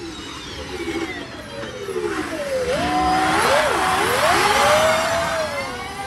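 Electric car passing by: a whining motor tone that slides down in pitch, then rises and wavers, over tyre and road noise that swells about halfway through and fades near the end.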